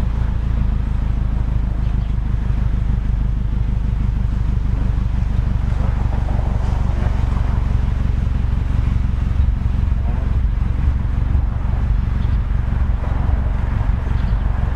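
Subaru BRZ's flat-four boxer engine idling, heard close to the tailpipes through unequal-length headers and a Perrin 2.5-inch resonated exhaust: a steady low rumble with a fast, even pulse.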